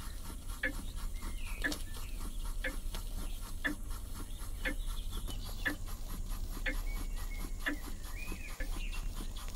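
Model steam beam engine running slowly, its exhaust giving a steady puff about once a second. A pet budgerigar chirps briefly in the background, once near the start and again near the end.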